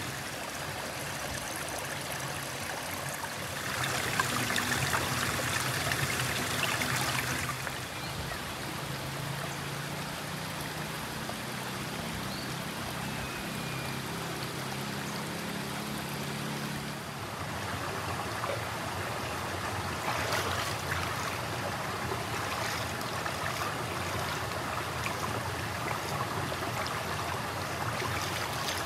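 Shallow rocky river flowing and trickling over stones, a steady rush of water that swells louder for a few seconds near the start and again about two-thirds of the way through.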